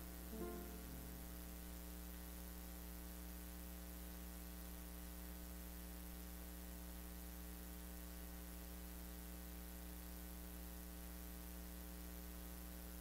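Steady electrical mains hum, a low buzz made of many even tones. The last notes of music die away about a second in.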